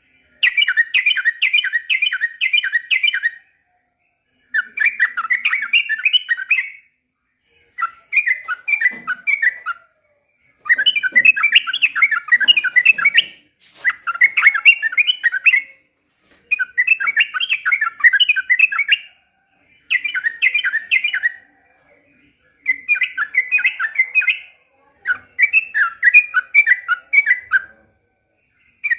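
Yellow-vented bulbul (trucukan) singing: bubbly, fast chattering phrases of two to three seconds each, about ten in a row with short pauses between.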